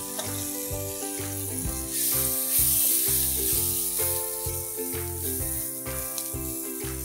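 Light soy sauce and aromatics sizzling in a hot wok while being stirred, the sizzle loudest about two to three seconds in, over background music.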